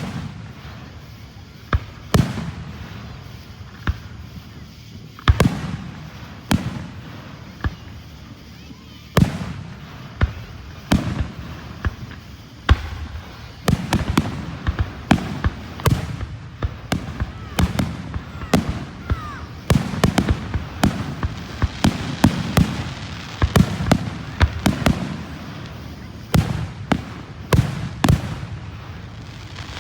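Aerial fireworks going off: sharp bangs every second or two, each trailed by a low rumble, coming much thicker and faster from about halfway through.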